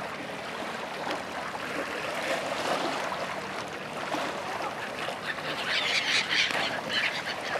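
A flock of gulls and ducks calling on the lake over a steady lapping of small waves at the shore, the calls crowding together in a dense burst about six seconds in as gulls lift off the water.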